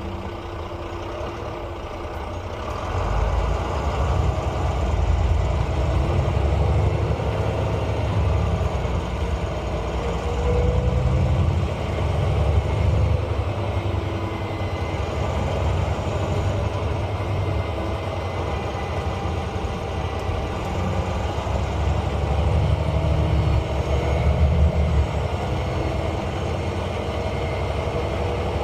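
Volvo B9 bus's 9-litre six-cylinder diesel engine pulling away and running under load, swelling in level about three seconds in, with a faint high turbo whistle rising and falling in the middle.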